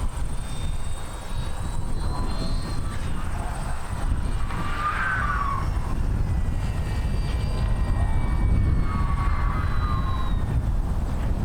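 Large RC glider making a high-speed pass, its airframe whistling and rushing through the air with whistle tones that rise and fall as it goes by, over a steady low rumble of wind.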